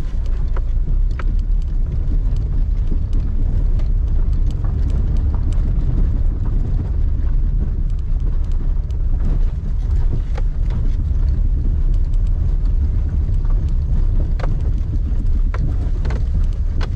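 Steady low rumble of a car driving, heard from inside the cabin, with scattered small clicks and knocks.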